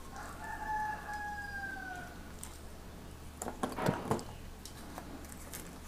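A rooster crowing once, one long call of about two seconds that falls slightly in pitch. About three and a half seconds in, a few short rustles and clicks of objects being handled.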